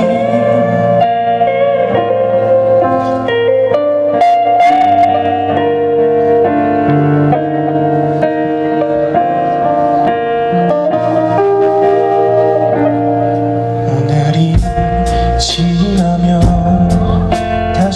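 Live band instrumental break: electric guitars, keyboard, bass and drums, with a sustained lead melody whose notes bend in pitch. About fourteen seconds in, the drums and bass come in harder, with cymbal hits.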